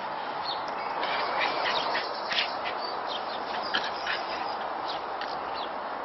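Two puppies play-fighting, with many short, high-pitched squeaky yips scattered through, over a steady background hiss.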